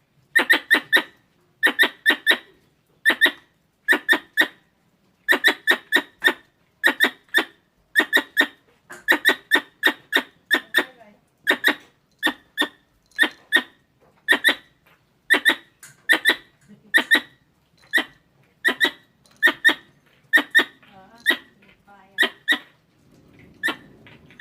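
Squirrel calls: sharp, squeaky chirps in quick bursts of two to four, repeating about once a second in a steady, insistent chatter, the kind of call used to lure squirrels.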